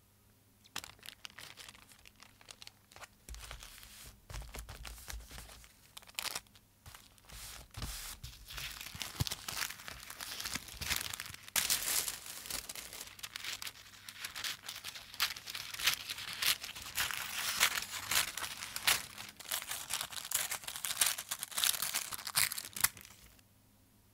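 Printed map paper being handled and pressed flat by hand, crinkling and crackling with many sharp snaps. It starts just under a second in and stops shortly before the end.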